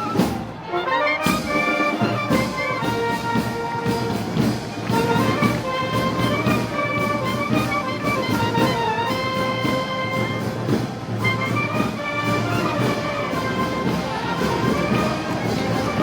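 Brass band playing live festival march music, trumpets and trombones over a steady drum beat.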